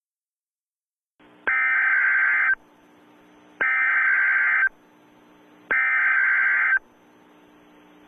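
Emergency Alert System SAME header: three loud bursts of high digital data tones, each about a second long and about a second apart, with a faint steady hum between them. It is the coded header of an Emergency Action Notification.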